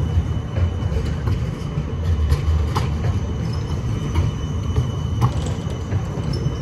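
A low-floor articulated electric tram passing close by, with a steady low rumble, irregular sharp clicks from the wheels on the track, and a faint steady high tone.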